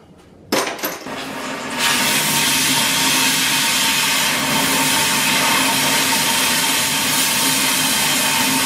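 Oxy-fuel cutting torch hissing as it cuts through a rusty steel pipe. The sound starts softer, then about two seconds in becomes a loud, steady hiss with a faint whistle as the cut gets going.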